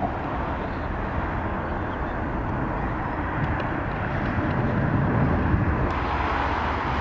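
Distant jet engine rumble of an Airbus A380 on its takeoff run, steady and low, mixed with wind noise on the microphone.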